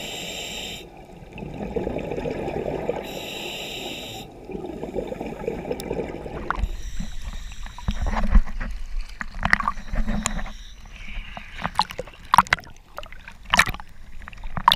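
Muffled underwater rumble heard through a waterproof camera housing. About six and a half seconds in it gives way to choppy sea water sloshing and slapping irregularly against the camera as it bobs at the surface.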